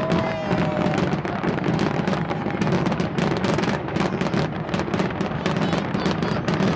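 Fireworks going off without a break: dense, irregular crackling and bangs over a steady low rumble, with a couple of brief whistling tones about the first second.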